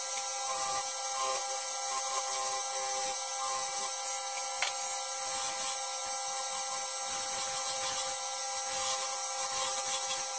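Wood lathe running steadily, its motor giving a constant whine made of several steady tones. There is one faint click about halfway through.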